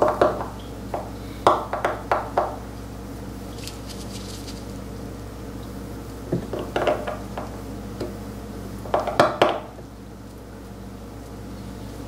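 Seal-carving knife cutting into a seal stone: short clusters of scratchy, gritty scrapes and chips, four times, over a steady low hum.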